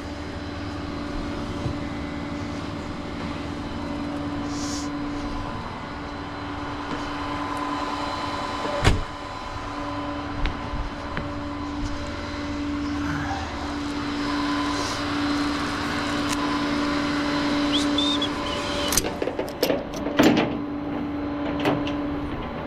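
Vehicle machinery running with a steady hum, a sharp knock about nine seconds in, and several clunks and clicks near the end.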